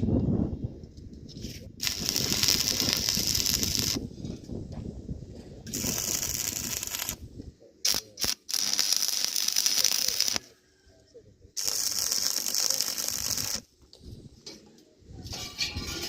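Electric arc welding on iron bars in short runs: four bursts of harsh crackling hiss, each about two seconds, that start and cut off abruptly with short pauses between.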